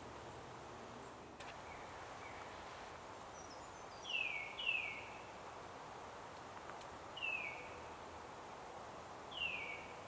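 Northern cardinal singing: clear whistled notes that slide downward in pitch, two in quick succession, then single notes about three and two seconds apart.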